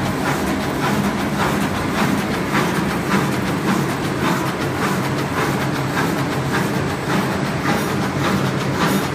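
A4 copy-paper cutting machine running: a steady mechanical drone with a regular clack about twice a second.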